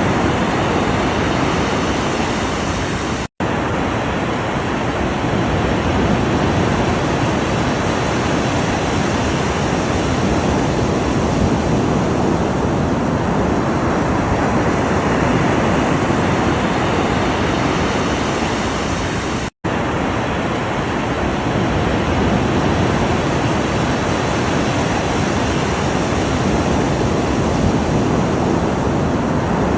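Ocean surf: a steady, even rush of breaking waves. It cuts out to silence for an instant twice, about three seconds in and again near twenty seconds.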